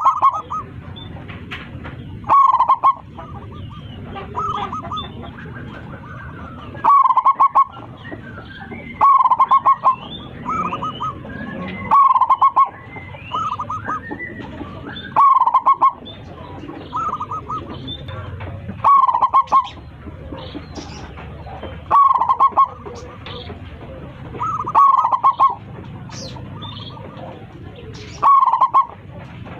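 Zebra dove (perkutut) singing its cooing song, repeating the same short phrase every two to three seconds, with fainter chirps of other small birds in between.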